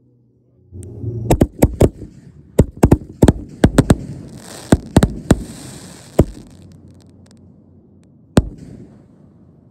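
Fireworks going off: a quick string of about a dozen sharp bangs with a crackling hiss in the middle of the run, then one last bang near the end.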